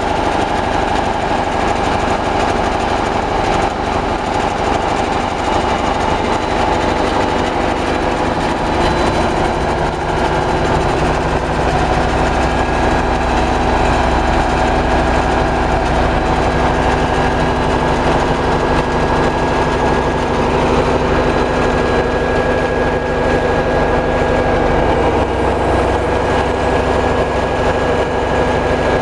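Large biogas generator set's inline multi-cylinder engine running steadily, a loud, even drone with a constant hum.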